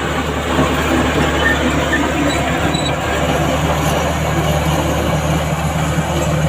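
Heavy diesel earthmoving machinery running steadily under load, with a few brief faint metallic squeaks.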